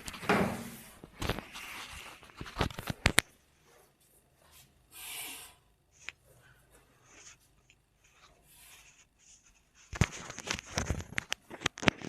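Clothing and table cover rustling as a patient is handled during a chiropractic adjustment, with several sharp clicks. The sound comes in two spells, with a quieter stretch between them.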